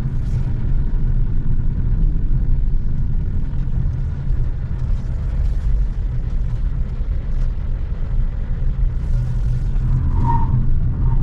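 Steady road and tyre rumble inside the cabin of a GWM Ora 3 electric hatchback climbing a steep hill, with no engine note. A brief high chirp comes near the end.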